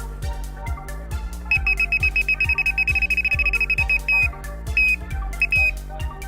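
Electronic carp bite alarm sounding a fast run of high beeps, about ten a second, starting about a second and a half in, then a few longer single tones: a carp taking line off the reel. Background music with a steady beat throughout.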